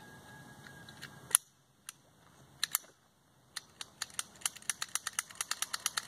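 Small metallic clicks from a Jennings J-22 .22 pocket pistol being unloaded by hand, its magazine taken out and its slide worked. One sharp click comes about a second and a half in, then a couple more, then a quick run of small clicks, about four or five a second, through the second half.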